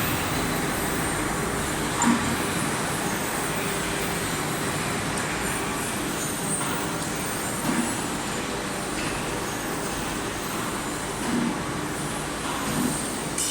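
Stainless steel coil cut-to-length line running, a steady machinery noise with a few short knocks.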